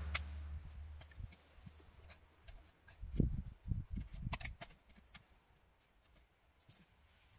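A steel spade digging into stony soil. About three seconds in come a few dull thuds and sharp scrapes as the blade bites and strikes stones, and before that a low rumble fades out.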